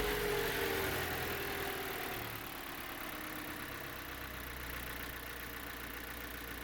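VW SpaceFox 1.6 8-valve EA111 flex engine idling just after starting, with its accessory belts off. Its revs fall over the first two seconds or so, then it runs steadily. The noise it had been making is not heard, which points to a belt-driven accessory rather than the engine's internals; the mechanic suspects the air-conditioning compressor bearing.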